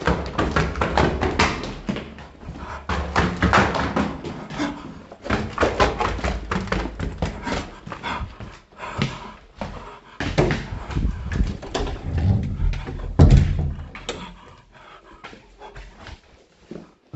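Hurried footsteps going up stairs amid knocks and rustling from a handheld camera, with a person breathing hard. There is a heavy thump about thirteen seconds in, and things grow quieter after it.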